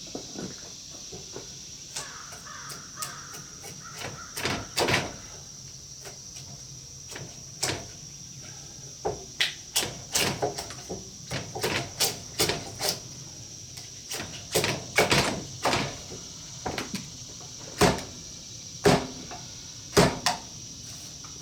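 Irregular sharp blows of a hand tool hewing a pine beam, coming singly and in quick clusters of two or three, with the loudest near the end.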